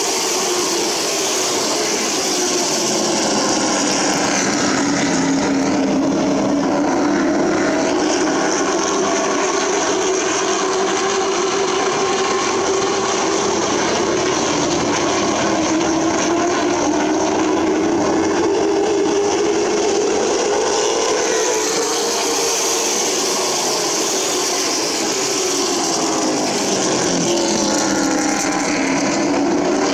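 A field of short-track stock cars racing around a paved oval, their engines running hard under load, with the engine note rising and falling in slow waves as the cars go down the straights and through the turns.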